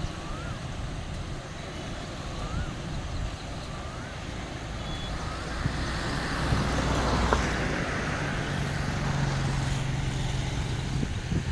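Motor vehicle traffic: an engine passes close, swelling about halfway through and then settling into a steady low hum. A short rising chirp repeats about once a second in the first half.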